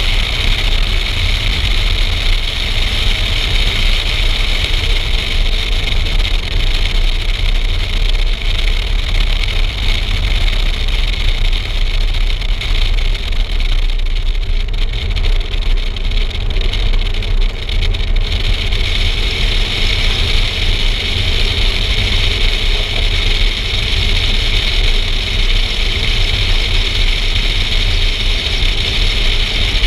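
A car driving at low speed, its engine and road noise running steadily under a heavy wind rumble on an outside-mounted camera's microphone. A hiss sits above the rumble throughout and thins for a few seconds in the middle.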